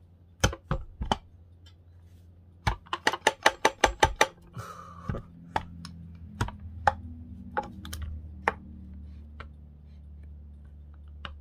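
Metal clicks and taps of hand tools and parts on an old grinder being worked apart, with a quick run of about seven clicks a second about three seconds in and scattered single clicks and a brief scrape after. A low steady hum lies underneath.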